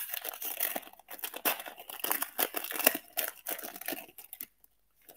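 Foil wrapper of a trading-card pack crinkling and tearing as it is pulled open by hand, a dense run of crackles that stops about four and a half seconds in.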